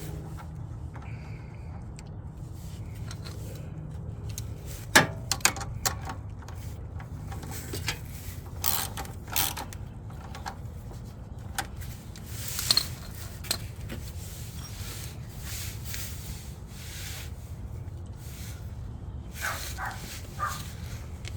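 Scattered clicks, clinks and scrapes of hand tools and small fasteners being handled while heat-shield nuts are threaded back on under a car, over a steady low hum.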